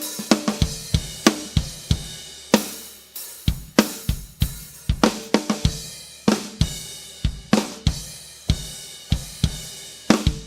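Drum kit played in a steady groove that shows off Kingdo handmade cymbals: hi-hat and cymbal strikes ring over snare and bass drum hits, several strokes a second. The playing stops near the end.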